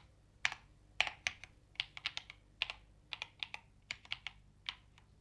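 Typing on a full-size Akko mechanical keyboard with linear Akko V3 Piano Pro switches and PBT keycaps: uneven runs of quick keystrokes, a few struck harder than the rest.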